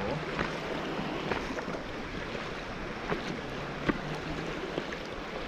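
Fast, high creek water rushing and churning around a low-riding inflatable kayak, with irregular short splashes of water against the boat and camera; one sharper splash about four seconds in.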